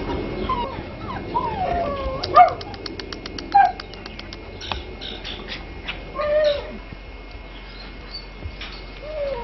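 Alaskan Malamute puppy whimpering and yipping in short, high cries that bend up and down in pitch, with a quick run of ticks about two seconds in.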